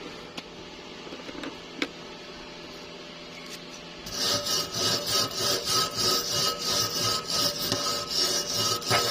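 A few light clicks, then, about four seconds in, a hand tool starts scraping back and forth in steady strokes, about three a second.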